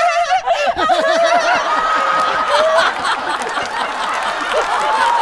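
Studio audience laughing: a burst of laughter early on that spreads into a dense wash of crowd laughter and noise.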